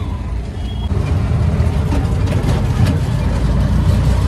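Auto-rickshaw engine running with road rumble, heard from inside the open passenger cabin during the ride. It gets louder about a second in.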